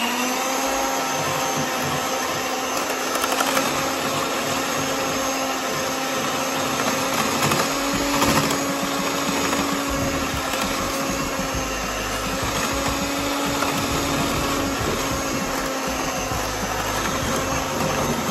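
Electric mixer motor running at a steady speed, beating butter and brown sugar together (creaming).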